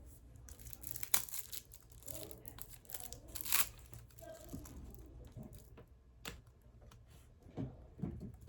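Packaging being crinkled and torn, with two loud, sharp tears, about a second in and around three and a half seconds in, and lighter rustling between them.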